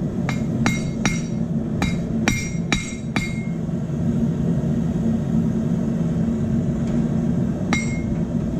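Hammer blows on hot steel at a small anvil while a forged crossbow bolt arrowhead is straightened: seven ringing strikes in about three seconds, a pause of over four seconds, then one more strike near the end. A propane forge burner runs steadily underneath.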